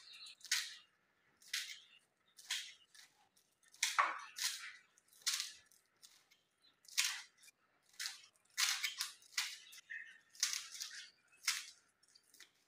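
Kitchen knife slicing spring onions on a cutting board: crisp cuts and taps of the blade on the board, irregular, about one or two a second, coming closer together in the second half.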